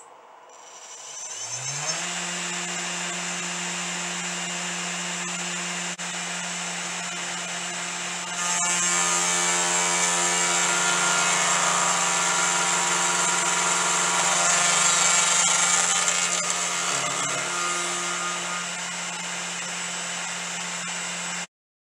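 A 500W brushless CNC router spindle spinning up with a rising whine over the first two seconds, then running at a steady pitch. About eight seconds in, the end mill bites into an aluminium bar and the sound turns louder and harsher as it mills. It stops suddenly near the end.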